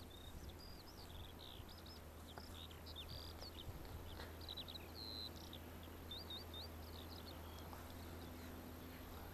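Faint birdsong: a small songbird singing a run of quick, high chirps and short whistled notes, over a steady low hum.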